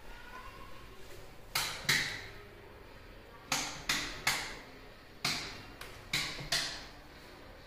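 A series of about eight sharp knocks, in groups of two or three a little over a third of a second apart, each ringing briefly.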